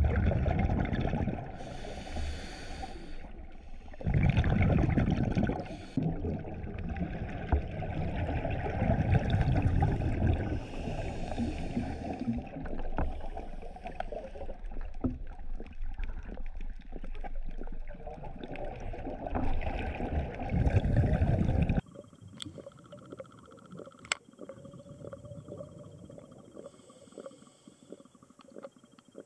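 Scuba breathing heard through an underwater camera: exhaled bubbles from the diver's regulator come in loud bursts a few seconds long, with fainter hissing breaths between. About 22 seconds in this cuts to a much quieter underwater background with a few sharp clicks.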